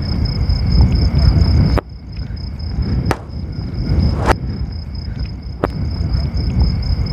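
Crickets chirping steadily in a night field while wind rumbles on the microphone, the rumble dropping away about two seconds in. Three sharp cracks follow, a little over a second apart, the second with a brief rising whoosh just before it.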